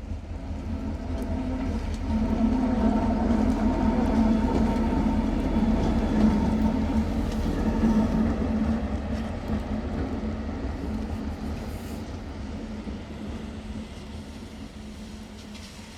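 A railway locomotive passing by with a low rumble and steady humming tones. It grows louder over the first few seconds, then fades away.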